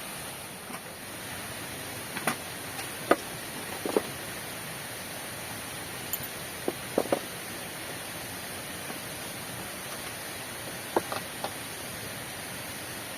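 Steady hiss of heavy rain, with a scattering of sharp clicks and taps, in small clusters about two to four seconds in, around seven seconds in, and around eleven seconds in.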